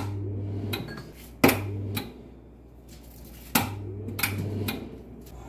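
Three sharp clanks of metal kitchenware about two seconds apart, each followed by a brief low hum, as a knife cuts sausage rolls on a metal baking tray.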